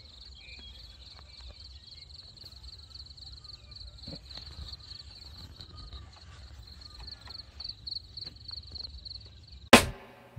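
Outdoor ambience: a steady, rapidly pulsing high-pitched buzz over a low rumble, with faint scattered clicks. One loud, sharp bang comes about a second before the end.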